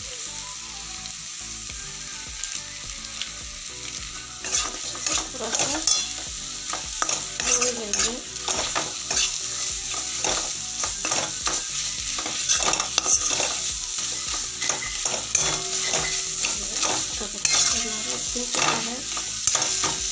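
Tomato masala with chole spice sizzling in oil in a kadhai, with a steel spatula stirring and scraping the bottom of the pan. The sizzle is steady, and the scraping strokes start about four seconds in and come thick and irregular from then on.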